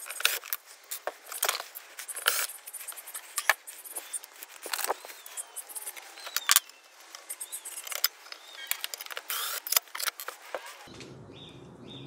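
Irregular sharp metallic clicks and clinks of hand tools and parts as the motor is unbolted from an Electrolux clothes dryer. The clicking stops about eleven seconds in, giving way to a low steady background.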